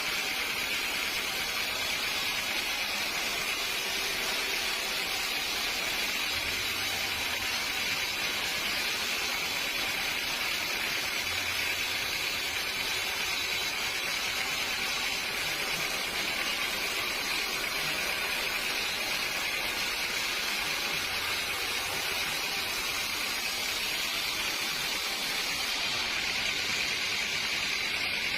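Steady hissing noise of sawmill machinery, even throughout with no breaks or changes.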